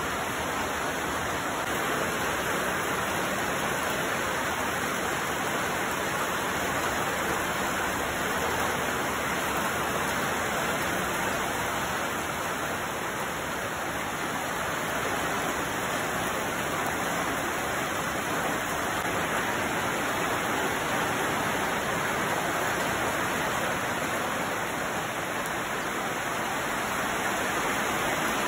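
Steady rain falling on leaves and roofs, an even, unbroken hiss.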